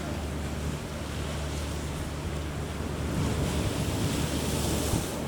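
Choppy sea waves washing and strong wind buffeting the microphone, over a steady low hum. The wash grows louder and hissier about three seconds in and eases near the end.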